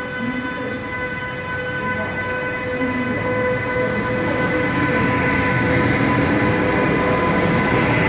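DB Class 101 electric locomotive pulling away with its coaches, the rumble of the train growing louder from about halfway as it moves past, over a steady high whine.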